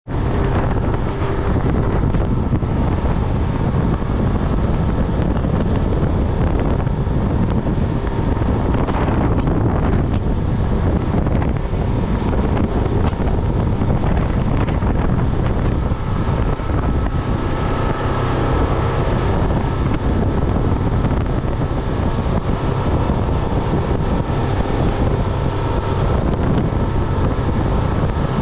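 Wind buffeting the microphone aboard a Grady-White Gulf Stream 232 powerboat under way, over the steady running of its engine and water rushing along the hull.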